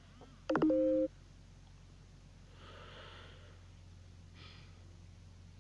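A brief steady tone about half a second in, lasting about half a second and the loudest thing here, then a faint breath near the microphone about three seconds in, over a low steady hum.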